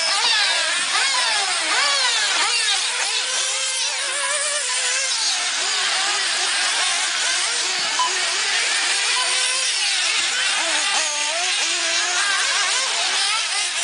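Several 1/8-scale RC buggies' small nitro engines racing together, a high-pitched engine scream that keeps rising and falling as they accelerate and brake around the track.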